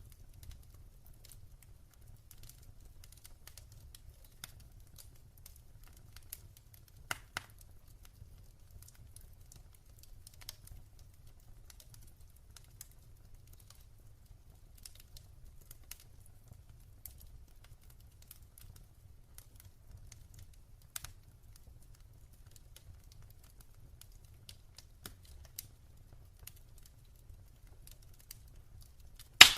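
Wood fire in a fireplace crackling with sparse, irregular pops over a low, steady rumble of the flames; a louder pair of pops comes about seven seconds in and one sharp, loud pop right at the end.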